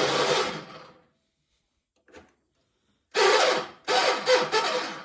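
1976 John Deere 300's starter cranking the engine without it catching. A steady cranking sound dies away within the first second, then after a faint click and a pause two short bursts of whirring, grinding cranking follow from about three seconds in: a hard start, with a starter the owner says is in a bind.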